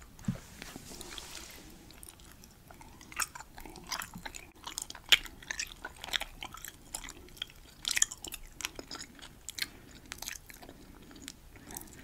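Close-miked chewing of a fresh cube of Hubba Bubba Max Original bubble gum: a soft thump as it goes into the mouth, then irregular wet clicks and smacks that grow busier from about three seconds in.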